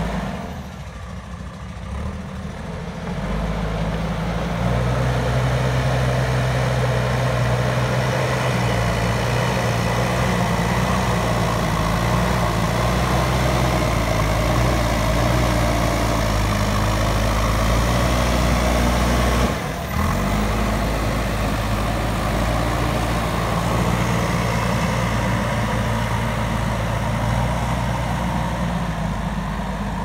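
JCB backhoe loader's diesel engine running under load as the machine drives over soil and works its front loader bucket. The engine is quieter for the first few seconds, then rises to a steady, stronger running, with a brief drop about two-thirds of the way through.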